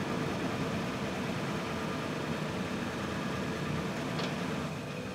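Toyota 4Runner's engine idling steadily.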